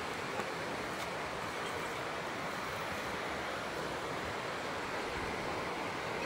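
Steady, even rushing noise with no distinct events, like wind in the trees or running water.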